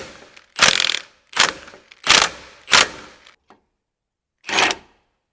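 Impact wrench hammering in about six short bursts on a rear brake caliper bracket bolt, with a pause of over a second before the last burst; the bolt does not break loose.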